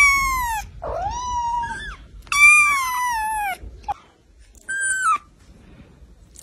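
Ginger kitten meowing repeatedly: about five high-pitched mews, most falling in pitch, the two longest near the start and around the middle, then a brief one and a short, higher one near 5 s.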